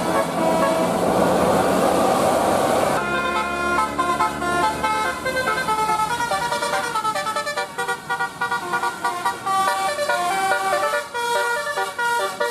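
Bus telolet basuri horn, a multi-tone horn, playing a quick tune of short stepped notes. The tune starts about three seconds in, after a loud rushing noise.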